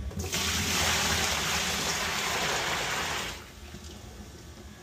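Water drained from a water heater poured out of a bucket into a plastic utility sink, splashing and rushing for about three seconds before it stops.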